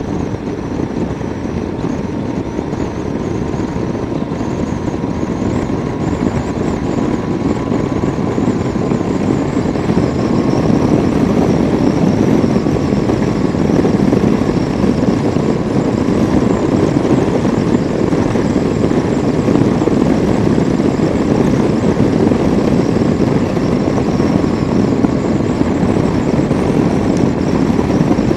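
Motorcycle riding at road speed: the engine running under a steady rush of wind, heard from the rider's helmet. It gets a little louder about ten seconds in.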